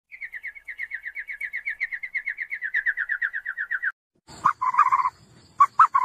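Animal calls: a fast chirping trill of about ten notes a second, drifting slightly lower in pitch for about four seconds. After a short gap comes a louder run of short, lower-pitched calls.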